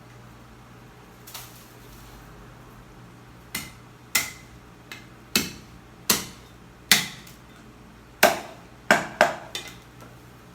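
A heavy cleaver chopping through pork bones on a chopping block. About ten sharp, irregular blows fall from a few seconds in, each with a brief metallic ring.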